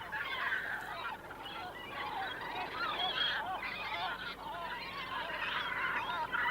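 Shag and cormorant breeding colony calling: a dense chorus of many overlapping squawks and cries.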